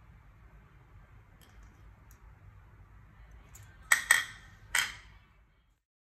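Three sharp clinks of a utensil against a ceramic plate about four seconds in, the last a little apart from the first two, over a faint low hum.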